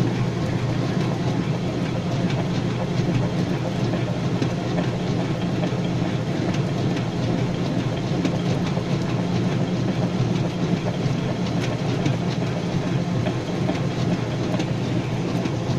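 Maytag orbital washing-machine transmission running open on a bench test, with a steady motor hum under a continuous rattle of gear clicks. The transmission is working again after its stuck shaft was freed.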